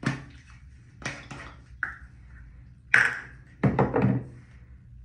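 A series of knocks and clatters of household items being handled and set down, about six in all, with a cluster of quick knocks near the end. Two of them leave a brief ringing ping, and the loudest comes about three seconds in.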